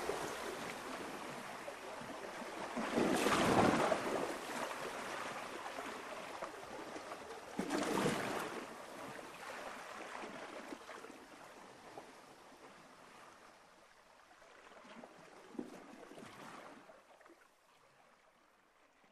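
Soft rushing noise like surf washing in, swelling three times a few seconds apart, each weaker than the last, and fading away near the end.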